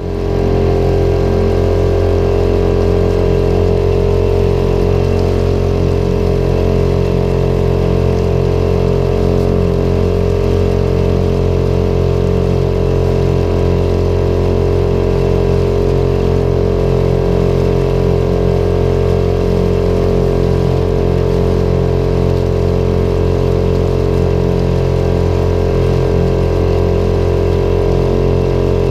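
Small tiller-steered boat motor running steadily at cruising speed, pushing the boat along.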